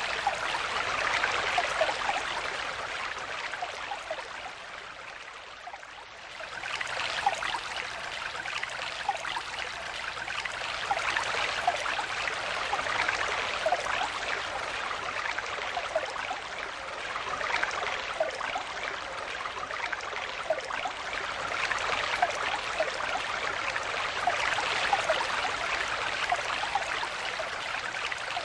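Small stream flowing and babbling, a steady rush with scattered bubbling gurgles. It turns briefly softer about five seconds in, then picks up again.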